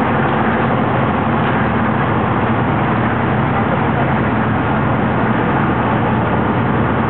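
A steady engine drone that holds level without change, a low hum of a few steady tones under a constant rushing noise.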